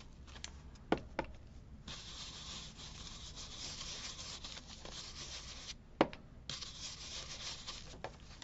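Red ink being rubbed onto corrugated cardboard, a dry scrubbing sound in two stretches, the first about two seconds in and the second after a short pause. A few sharp clicks come before, between and after, the loudest about six seconds in.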